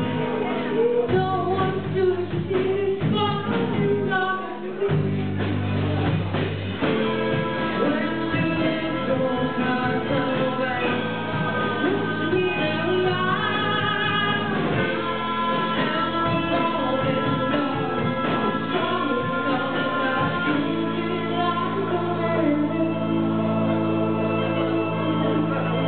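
Live band music: women singing over keyboard, drums and electric guitar. Steady held keyboard chords come in about seven seconds in.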